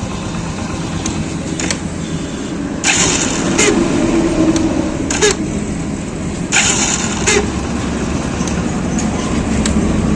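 Hero Splendor Plus single-cylinder engine running, with a harsh whirring grind from its self-starter motor every three to four seconds, each followed by a short click. The noisy self-start is typical of a dry brass bush and an ungreased bearing inside the starter.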